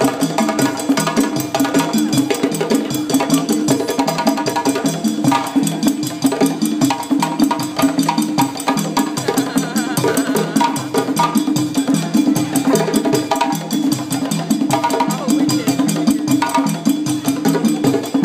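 A djembe drum ensemble playing by hand, a fast, steady rhythm of many overlapping strokes without a break.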